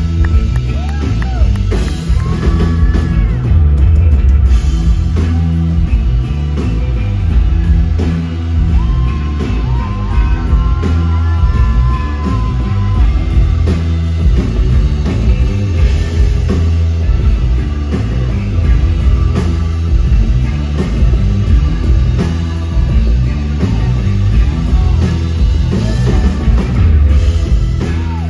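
A live blues-rock band playing loud: electric guitar lead with bending notes over drums and bass guitar.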